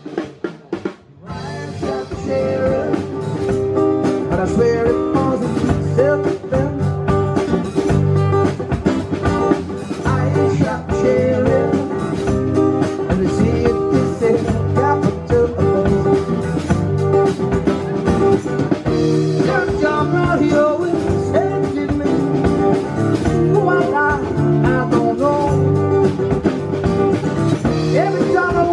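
Live acoustic rock band: two acoustic guitars strummed over a drum kit beat, with a man singing lead. The music dips briefly about a second in, then the full band plays on at a steady, loud level.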